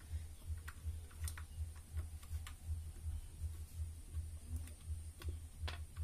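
Scattered light clicks and taps of a screwdriver and fingers working the wire terminal connector on top of a ceiling fan motor, as the coil wires are being disconnected. Under them runs a low hum that pulses about three times a second.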